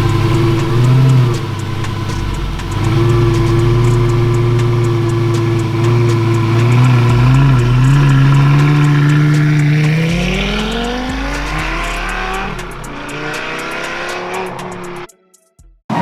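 Car engine running while driving, holding a steady pitch and then rising in pitch as the car accelerates about ten seconds in. The sound cuts off abruptly near the end.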